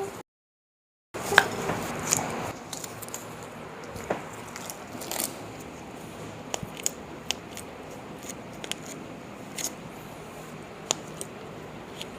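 Joint cracking during a chiropractic manipulation: after a brief dropout, one sharp crack about a second and a half in, then a few more pops and scattered light clicks.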